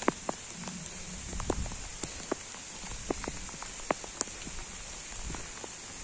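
Light rain falling on foliage: a steady hiss with scattered drops tapping irregularly.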